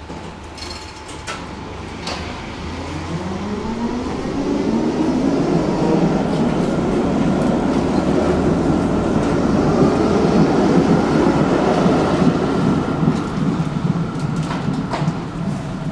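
Electric tram pulling away past the platform: after a few clicks, its traction motors whine upward in pitch as it accelerates, then hold a steady whine over the rumble of wheels on rail. The sound grows louder toward the middle and fades slightly near the end.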